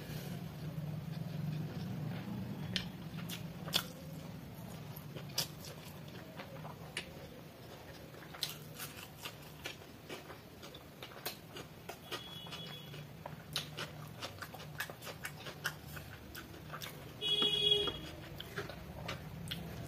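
Close-miked eating sounds: wet chewing and sharp mouth clicks and smacks as mouthfuls of chicken biryani are eaten by hand, over a low steady hum. A short high whine comes twice, about twelve seconds in and near the end; the second is the loudest sound.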